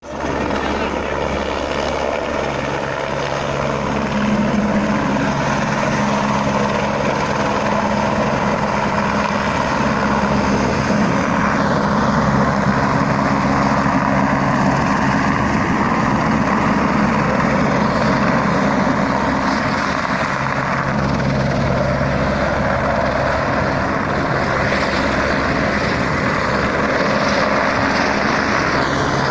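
Police helicopter hovering low: a steady rotor and engine drone with a constant low hum.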